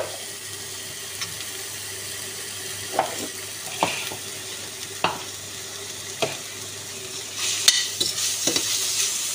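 Spices and green onion frying in a little oil in a pan: a steady sizzle while a spoon stirs, knocking against the pan a few times. The sizzle grows louder about seven seconds in.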